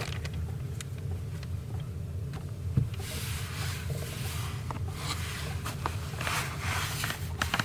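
A steady low hum with light rustling and a few scattered clicks, like things being handled in a small space.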